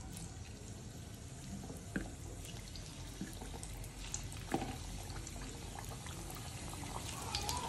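Hot oil in a kadhai bubbling and sizzling as slices of steamed colocasia-leaf roll (alu vadi) are dropped in to deep-fry, with a few sharp crackles about two seconds in and again midway.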